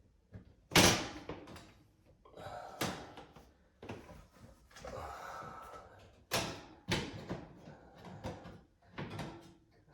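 Knocks and a loud bang as an HVAC air filter is pushed into its slot and the return-air grille is handled, with scraping and rustling in between.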